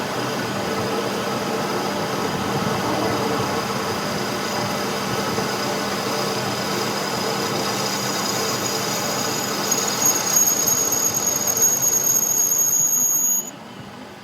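Steady machining noise on steel with a high-pitched squeal that builds and grows louder in the last few seconds, then stops suddenly about a second before the end.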